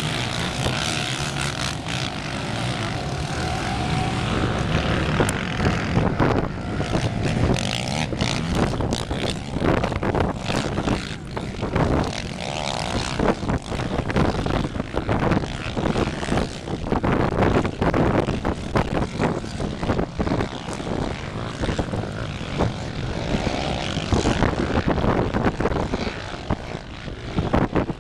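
Engines of a pack of racing ATVs revving hard through deep sand, the throttle rising and falling again and again as the quads climb the dunes.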